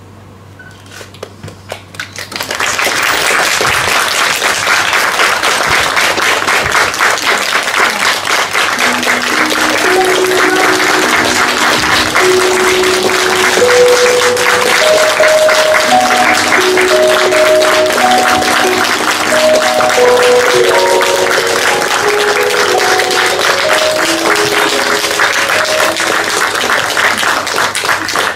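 Audience applauding: a few scattered claps swell into steady, loud applause about two seconds in and keep going. A simple melody of single held notes comes in under the clapping about a third of the way through.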